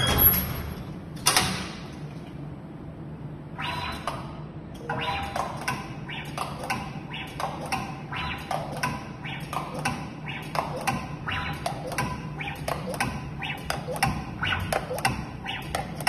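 Pneumatic endurance-test rig cycling a smart door lock: a rapid, steady run of mechanical clicks and clacks from the actuators and lock hardware, about two a second. Two heavier knocks come just before it starts.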